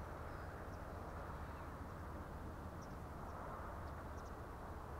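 Steady, faint rushing of a distant radio-controlled model plane in flight, with a few short, faint high chirps.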